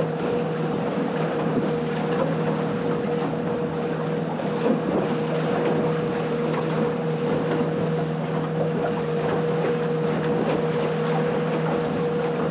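Outboard motor of a small plate-aluminium boat running at a steady speed with the boat under way, holding one steady hum, with wind buffeting the microphone.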